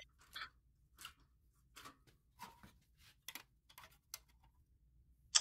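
Faint, scattered light clicks and ticks, about a dozen at uneven intervals, with one sharper click near the end.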